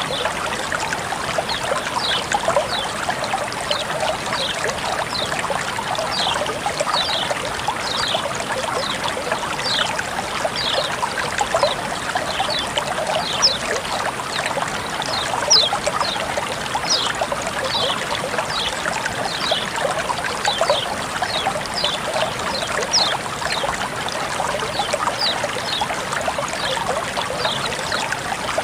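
Water flowing and trickling steadily, with many short, bright, falling plinks of droplets and bubbles over the flow.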